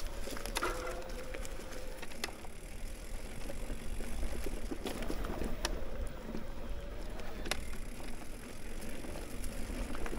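Mountain bike riding down a dirt trail: steady tyre and wind rumble with a faint wavering hum, and sharp clicks and knocks as the bike goes over rough ground.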